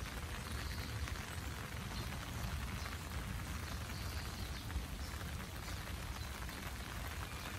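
Steady rain falling on trees, grass and wet paths, an even hiss with a low rumble underneath.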